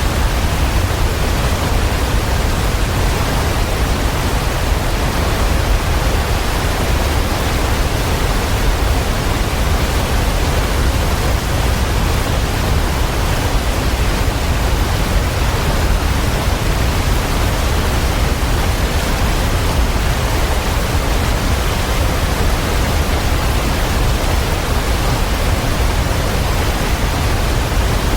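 Waterfall: a steady, unchanging rush of falling water, heaviest in the low rumble.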